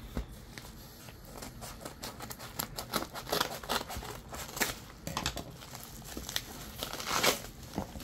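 Scissors snipping through a yellow padded mailer, with irregular crinkling and crackling of the paper envelope as it is handled. Near the end comes a louder crackle as the bubble-wrapped package is pulled out.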